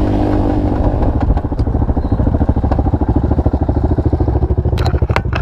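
Off-road vehicle engine idling with an even, rapid pulse, with a few sharp clicks near the end.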